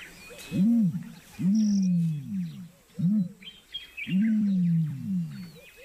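A large animal gives about four low calls that rise and then fall in pitch, each lasting under a second, while small birds chirp faintly in the background.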